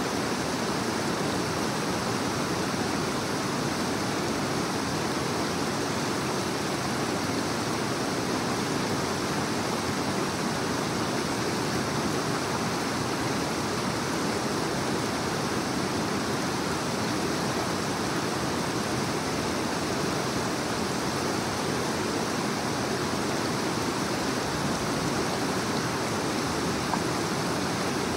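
A rocky creek rushing over stones: a steady, even roar of running water.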